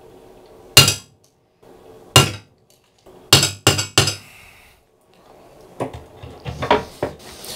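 Hammer peening the liner of an Ontario Rat 1 liner-lock knife, a few sharp ringing metal-on-metal blows with three in quick succession about three and a half seconds in, then lighter clinks near the end. The liner is being stretched so it lengthens and takes out the blade's lengthwise play.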